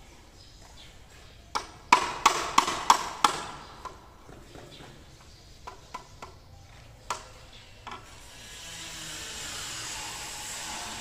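Small hammer tapping at a cement-rendered concrete column: six sharp taps about three a second, then a few lighter, scattered taps. A steady hiss builds up over the last few seconds.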